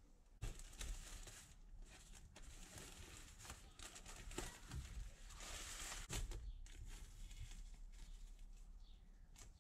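Thin plastic bag sheeting and masking tape crinkling, rustling and peeling as the masking is pulled off a freshly painted model boat hull. The rustling starts about half a second in and dies down after about six and a half seconds.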